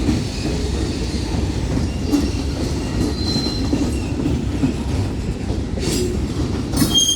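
Freight cars of a Union Pacific manifest train rolling past: a steady rumble of steel wheels on rail, with faint high wheel squeals now and then and two sharp clanks near the end.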